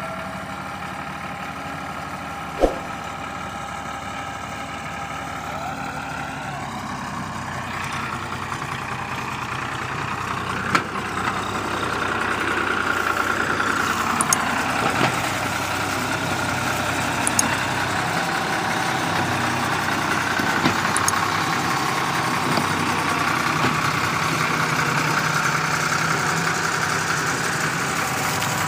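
Ford 4000 tractor engine running under heavy load as it hauls a loaded sugarcane trolley, getting louder about ten seconds in.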